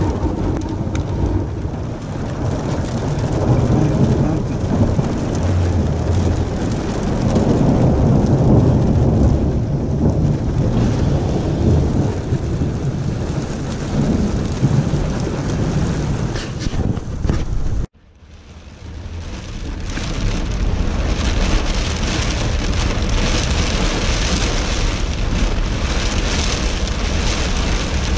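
Storm heard from inside a car: a loud, low rumbling noise for about the first eighteen seconds, then a sudden cut. After the cut, heavy rain falls on the car's roof and windshield in a steady hiss.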